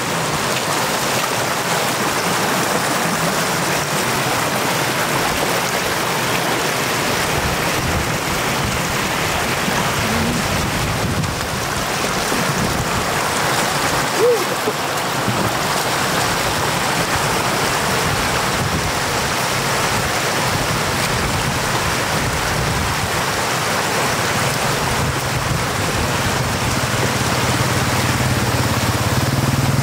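Floodwater running fast over the road edge and through the grass, a steady rush of water. A low hum comes in near the end.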